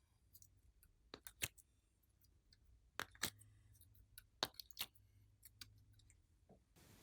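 Glossy slime being pressed and stretched by hand, giving off sharp clicks and pops in small clusters of two or three, roughly every second and a half.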